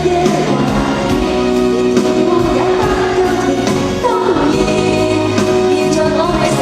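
Cantopop ballad from a live concert album: two female voices singing over a pop backing band, the vocals heavily autotuned to a robotic-sounding pitch.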